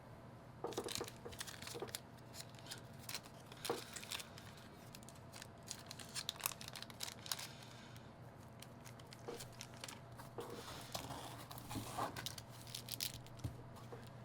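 Packaging being handled by hand: irregular crinkling, rustling and tearing, with scattered small crackles.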